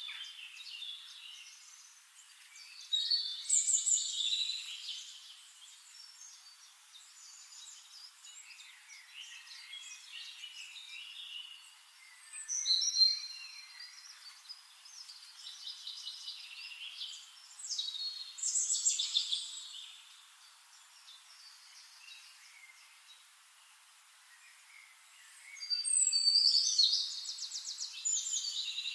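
Several songbirds singing and chirping in overlapping phrases, louder every few seconds, with a fast trill near the end.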